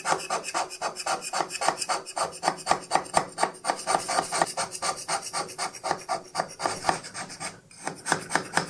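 Hand scraper step-scraping the way surface of a Schaublin 102 lathe compound slide, roughing a high surface down. Quick, rasping strokes come at about five a second, with a brief pause near the end.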